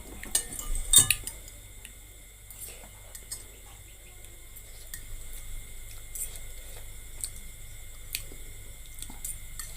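Metal eating utensils clinking against a bowl. There is a cluster of sharp clicks about a second in, then scattered light taps.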